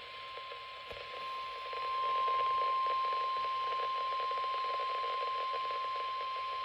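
NOAA Weather Radio warning alarm tone: one steady high tone at about 1050 Hz over radio static hiss, cutting off abruptly at the end. It is the signal that a warning bulletin follows.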